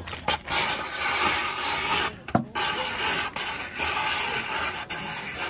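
Manual shaved-ice machine shaving a block of ice: a continuous rasping scrape with a couple of brief pauses.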